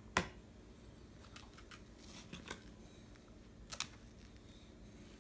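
Quiet room with a few light, sharp clicks and taps: one just after the start, a quick double click a little past the middle, and some fainter ticks between.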